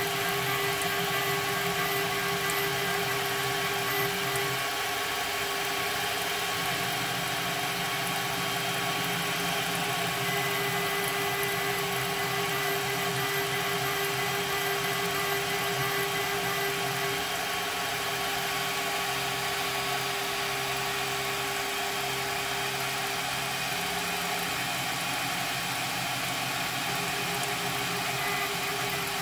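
CNC mill spindle turning a 1 mm end mill to engrave text into 4140 alloy steel under a coolant spray, at a deliberately slow feed so as not to break the tiny tool. It gives a steady whine over a hiss; the whine weakens in the latter half and briefly drops out a few seconds before the end.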